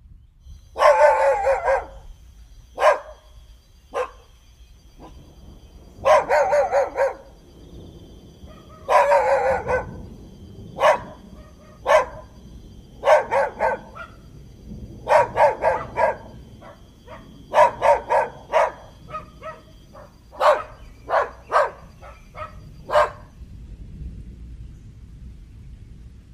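Dog barking in bouts: quick runs of several barks at a time, with single barks in between, growing choppier and more separate in the second half and stopping a few seconds before the end.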